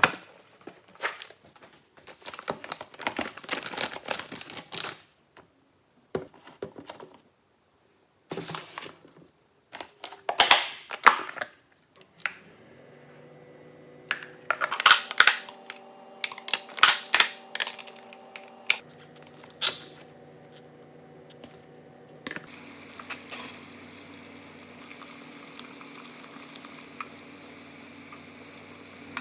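Crinkling, tapping and clattering of kitchen handling, then from about twelve seconds in a steady electrical hum of a running kitchen appliance, which changes pitch and gains a hiss about ten seconds later.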